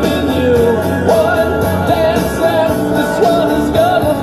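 Rock song with a singing voice over a steady beat, playing as intro music.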